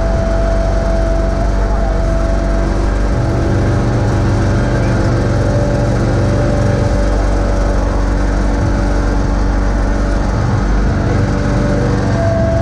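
John Deere X585 garden tractor engine running steadily as the tractor drives and plows, its low note swelling and easing a few times, with a thin steady whine over it.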